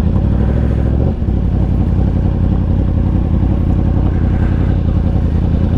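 2018 Yamaha R1's crossplane inline-four, fitted with a Competition Werkes exhaust, running steadily at low revs while the bike rolls slowly. The engine note breaks briefly about a second in.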